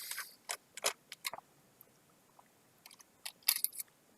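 Small clicks and taps of a screwdriver working out the laptop's hard-drive bracket screws: a few single ticks, then a quick cluster of clicks about three and a half seconds in.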